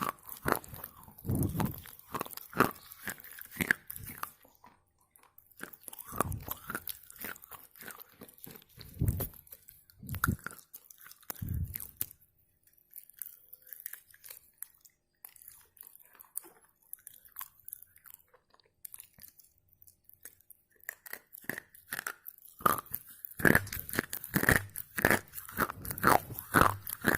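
Red slate pencils being bitten and chewed, with close, crisp crunching in bursts. There is a quieter stretch in the middle with only a few faint crunches, then dense crunching again near the end.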